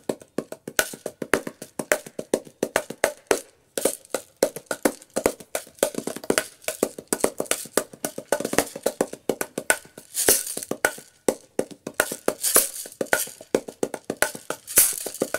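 Kandu Cajons Clever Shaker, a small hand percussion instrument with a clave-like side, a bongo-like side and a shaker built in, played by hand in a fast, dense rhythm of strikes. Short bursts of shaker rattle come in a few times in the second half.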